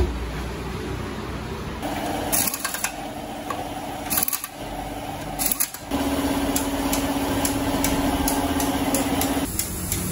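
A small motor whining steadily in two stretches of about three and a half seconds, broken by a brief gap, with scattered light metallic clicks.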